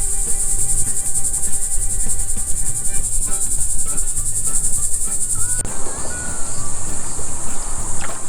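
Steady high-pitched buzzing of insects, a cricket-like chorus, which drops in level suddenly about five and a half seconds in, over a low rhythmic pulsing.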